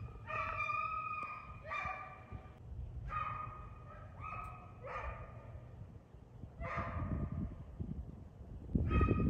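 Deer hounds baying on a deer's trail: a string of about seven drawn-out calls, some dropping in pitch at the end, over a low rumble that grows louder near the end.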